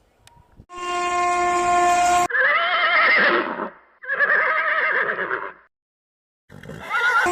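A locomotive air horn gives one steady multi-tone blast of about a second and a half, which cuts off abruptly. Two wavering whinny calls like a horse neighing follow, each over a second long. Near the end the rushing noise of the passing express train comes in with another short horn note.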